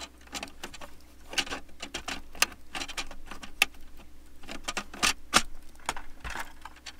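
Plastic filter cartridge of an Arctic Air personal evaporative cooler, fresh from the freezer, being pushed and worked down into its plastic housing: a run of irregular clicks, knocks and scrapes of hard plastic.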